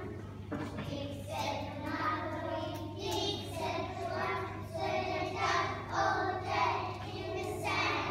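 A group of children singing together, with a steady low hum underneath.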